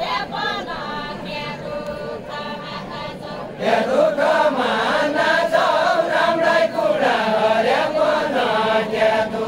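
A group of voices singing a Deuda folk song in unison, unaccompanied, in long drawn-out phrases; about three and a half seconds in, the singing turns louder and fuller as more voices join the chorus.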